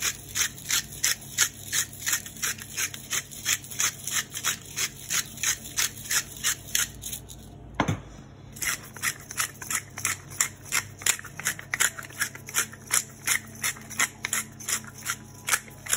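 Hand-twisted seasoning mill grinding salt and pepper: a steady crunching rhythm of about three twists a second, with a short pause about seven and a half seconds in before the grinding resumes.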